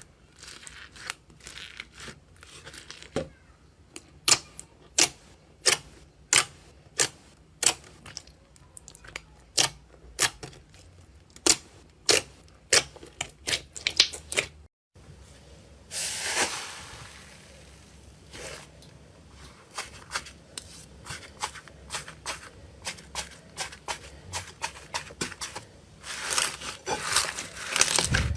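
Slime being handled and squeezed, first with a regular run of sharp pops about one and a half a second. After a cut comes a short crinkling hiss, then fine crackling that grows dense near the end.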